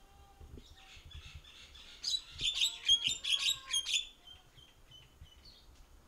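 Javan myna calling: a loud, rapid chattering run of harsh notes for about two seconds near the middle, with fainter scattered chirps before and after.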